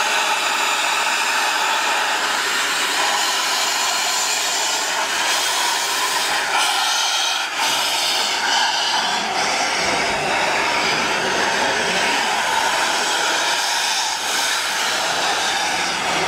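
Furka rack-railway steam locomotive B.F.D. 9 standing and venting steam, a loud, steady hiss with no exhaust beats.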